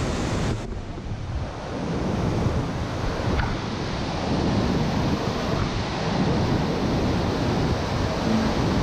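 Large waterfall rushing steadily, heavy white water pouring into the gorge below, with wind buffeting the microphone.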